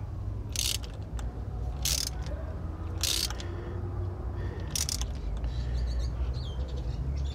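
Hand socket ratchet being worked in short strokes to snug down bolts on the valve cover of a Honda engine. Each back-stroke gives a brief burst of pawl clicks, four bursts in the first five seconds, over a low steady rumble.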